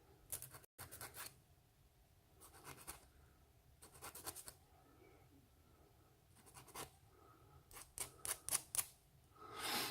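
Small brass pin being worked by hand with abrasive, in short groups of light scratching strokes with pauses between them.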